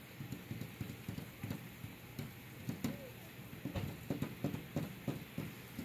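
Rain during a heavy thunderstorm, with drops splattering in quick irregular taps, several a second, over a steady faint hiss.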